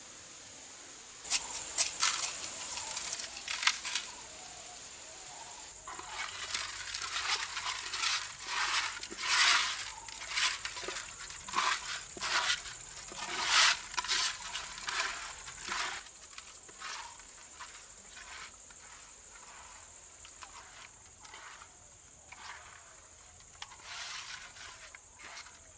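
Hands mixing raw fish chunks with coarse salt in an earthenware pot: irregular wet crunching and scraping strokes, loudest in the middle, then softer and sparser. A steady high chirr of crickets runs behind.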